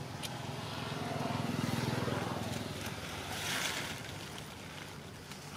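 A low engine rumble that swells over the first two seconds and then fades, as of a motor vehicle passing, with a short hiss about three and a half seconds in.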